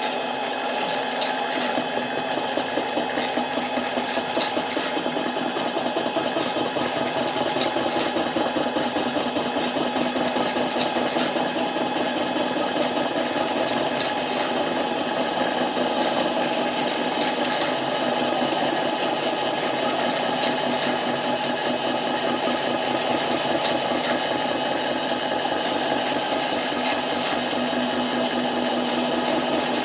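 Harbor Freight 7x10 mini lathe running steadily, its motor and gears humming with a fast fine chatter, while the tool takes a light cut on a Husqvarna 372 chainsaw cylinder. A thin high whine joins about halfway through.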